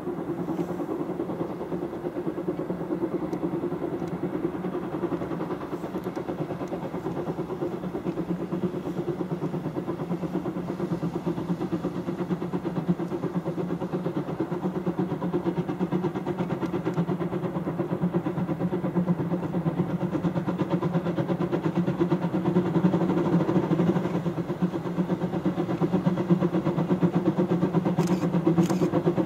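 Class 99.77 narrow-gauge steam locomotive working, its exhaust beats running together into a fast steady chuffing that grows louder near the end as the train comes closer.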